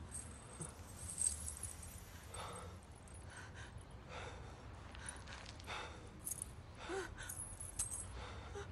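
A person's faint gasping breaths over a steady low hum, with a light jingle of a metal chain necklace being picked up about a second in.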